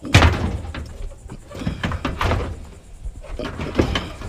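Scrap metal being shifted and set down, banging and knocking: one loud bang right at the start, then several lighter knocks.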